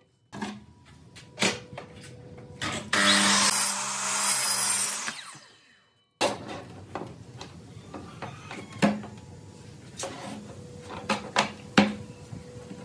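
Sliding compound miter saw running and cutting through a board for about two and a half seconds, then winding down. Later come scattered light knocks and taps on a wooden panel lying across pipe clamps.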